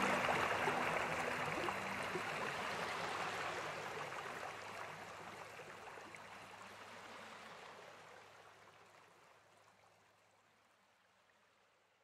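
A steady rushing, water-like noise, with the last low tones of background music dying away about two seconds in. The whole sound fades slowly and evenly to silence.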